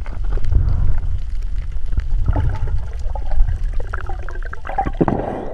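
Underwater water noise heard through a GoPro's waterproof housing: a low muffled rumble of moving water with scattered clicks and crackles, and gurgling, bubbling sounds through the second half.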